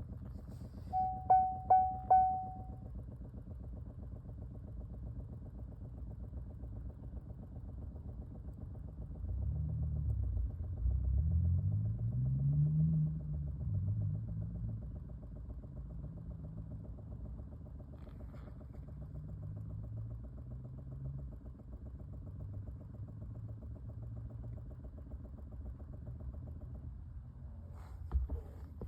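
Rapid clicking from a 2020 Chevrolet Bolt EV, a fast, even ticking over a low hum. About a second in, three or four short beeps sound, and in the middle a low hum rises in pitch for a few seconds.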